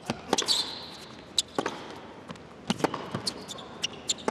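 Tennis rally on an indoor hard court: rackets striking the ball back and forth, with ball bounces between the strokes.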